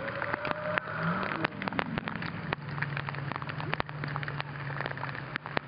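Rain falling: a dense crackle of many small drops. Under it is a low steady hum that starts about half a second in and fades near the end.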